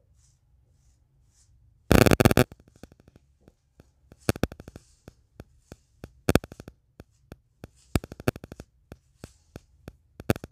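Hands and a comb working hair into a tight bun: a dense burst of crackling about two seconds in, then irregular sharp clicks and rustles several times a second.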